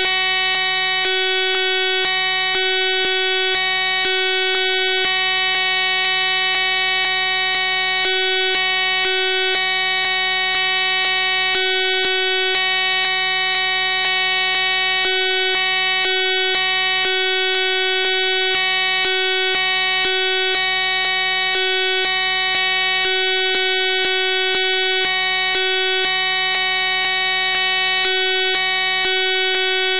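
Loud electronic buzzing made of many steady tones held at once, with a lower hum that cuts in and out irregularly.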